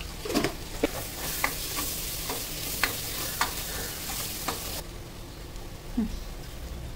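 Curry masala of tomatoes and curry leaves sizzling in oil in a stainless steel pressure cooker while a spatula stirs it, scraping and tapping against the pot. The sizzle cuts off abruptly about five seconds in, leaving a quieter stretch with one knock near the end.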